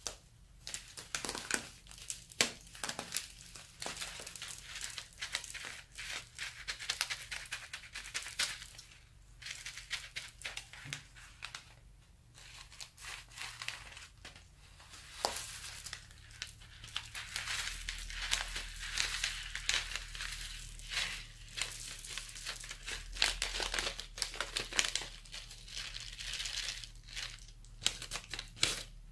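Plastic piping bag full of foam beads crinkling and rustling as it is squeezed and handled, with sharp irregular crackles throughout. Scissors snip the bag open about halfway through, and the beads spill out onto the slime.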